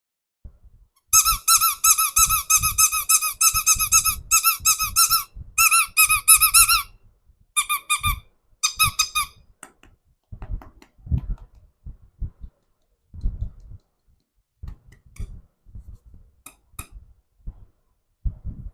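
A squeaky toy squeezed again and again: a fast run of high squeaks for about six seconds, then two short bursts. After that come only soft knocks and handling sounds.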